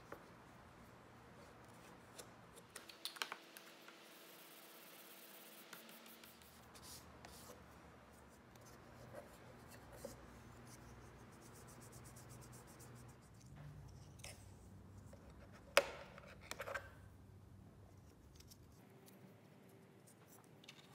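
Faint handling sounds of hands working a small brass-and-steel bevel gauge and polish tins on a workbench: soft rubbing and scattered light clicks, with one sharper click about two-thirds of the way through.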